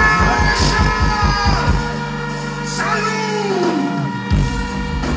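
Live dancehall performance through a concert PA: a vocalist holds long notes over a heavy bass beat, and the bass turns to sustained notes about two seconds in. Near the fourth second the voice slides down in pitch.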